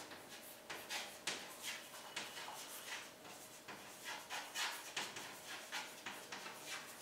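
Chalk writing on a blackboard: a run of faint, short scrapes and taps as letters are written stroke by stroke.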